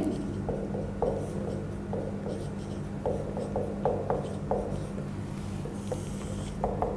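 Marker pen writing on a whiteboard: a run of short strokes and taps as a word is written, then a longer stroke near the end as the heading is underlined.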